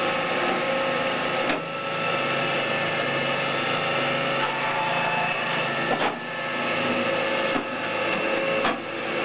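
Electro-hydraulic firewood processor running in full-auto: its 7.5 kW electric motor and hydraulic pumps give a steady hum with several constant tones. Four short sharp clacks cut in, one about one and a half seconds in and three in the last few seconds.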